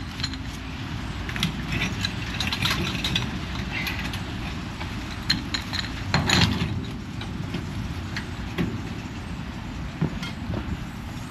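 A truck engine idling steadily, with scattered metallic clinks and knocks on top; a louder cluster of knocks comes about halfway through.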